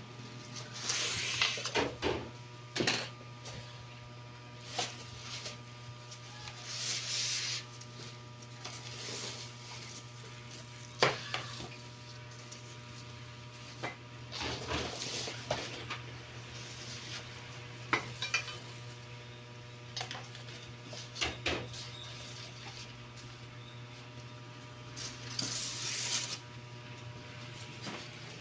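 Small hard objects being handled on a table: scattered clinks and knocks, the loudest about eleven seconds in, with several short bursts of rustling, over a steady low hum.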